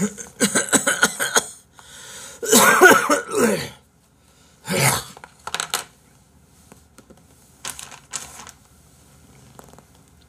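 A man coughing and clearing his throat in several bouts, his airway sore after choking on extremely spicy kimchi.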